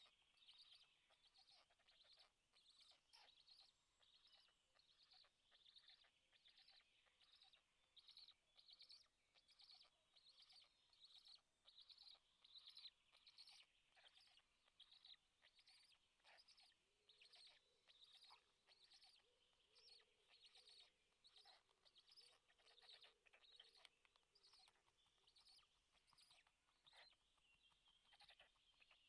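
Faint, steadily repeated high bird chirps, a little more than one a second, going on without a break.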